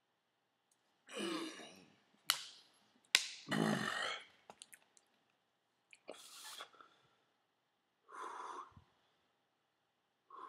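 A man breathing hard in short, breathy bursts — about five heavy exhales and gasps spaced a couple of seconds apart, with two sharp clicks early on — as he reels from the burn of super-hot chili peppers.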